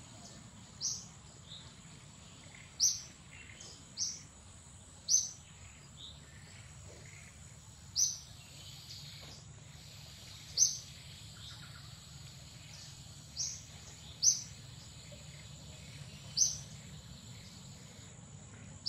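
A bird calling with short, sharp, high chirps, each falling slightly in pitch, about ten of them one to three seconds apart, over a steady high-pitched insect drone.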